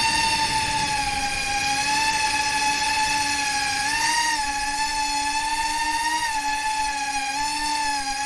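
FPV quadcopter's electric motors and propellers whining steadily, the pitch wavering up and down with the throttle, with brief rises about four, six and seven and a half seconds in.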